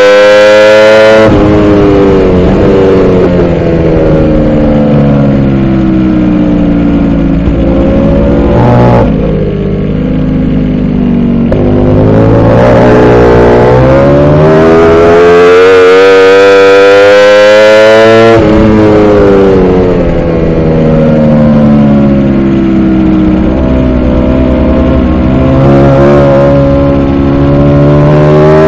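Ducati Panigale V4 R's V4 engine heard onboard at race speed. The revs climb hard under acceleration, then fall away as the bike slows into corners, a few times over, with a sudden drop in pitch about two-thirds of the way through.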